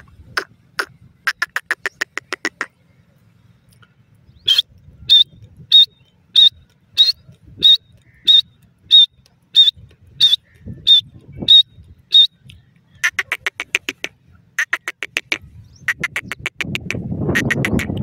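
Francolins (teetar) calling. First comes a fast rattling run of repeated notes, then a slower series of loud, sharp, high notes at about one and a half a second, then more fast rattling runs. A low rumbling noise comes in near the end.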